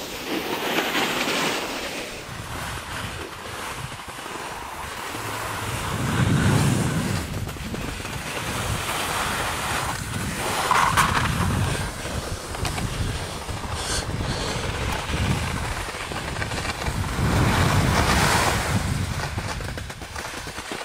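Wind rushing over the camera microphone while skiing downhill, with skis hissing and scraping through wet spring slush. The noise rises and falls in several surges.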